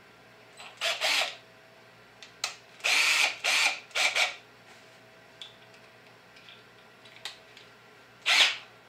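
BLACK+DECKER 20V MAX cordless drill's keyless chuck being opened and closed while a bit is changed, in short bursts: one about a second in, three close together a few seconds later, and one more near the end.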